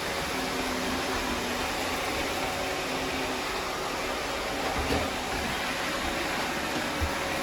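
Robot vacuum cleaners running, a steady whirring hiss of their suction motors and brushes, with a faint low hum and a light bump about five seconds in.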